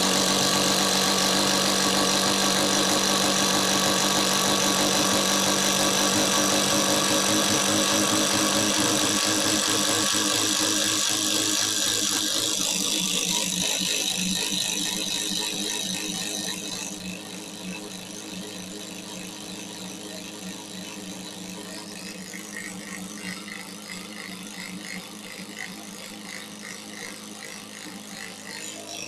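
Cordless impact driver hammering as it bores a 5/8-inch self-feed paddle bit into a wooden beam. It is loud for the first dozen seconds, then drops to a quieter, steadier grind as the bit goes deeper.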